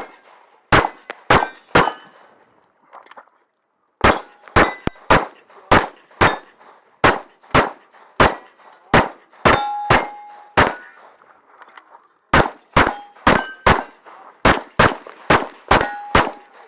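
Glock 35 .40 S&W pistol fired in rapid strings, about two to three shots a second. Several shots are followed by the brief ring of hit steel targets. The firing pauses twice, about two seconds in and again near the eleven-second mark.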